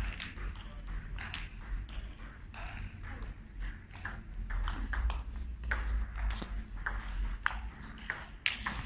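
Table tennis rally: the ball clicks back and forth off the rackets and the table in quick, irregular ticks, with a louder stroke near the end.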